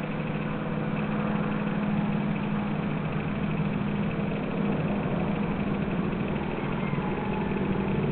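A steady, low mechanical drone with a rough, noisy texture, as from a motor running at an even speed.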